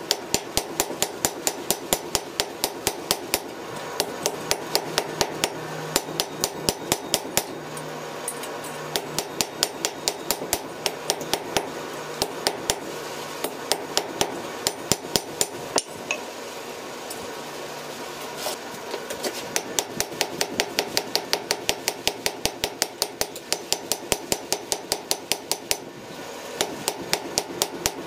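Hand hammer striking a red-hot steel cross on an anvil: a fast, even run of ringing blows, about five a second, broken now and then by short pauses.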